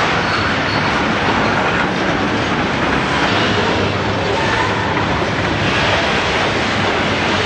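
Freight train cars rolling past close by: a steady noise of steel wheels on the rails.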